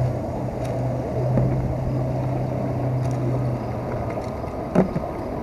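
Steady low engine hum, likely a motorboat out on the river, which drops away a little under four seconds in. A short sharp knock comes near the end.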